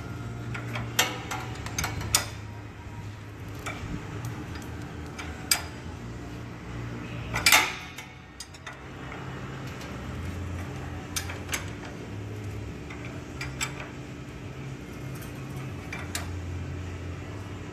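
Scattered metallic clicks and clinks of a socket wrench on the crankshaft pulley as an air-cooled VW engine is turned over by hand to top dead centre. The loudest is a short rasp about halfway through. A steady low hum runs underneath.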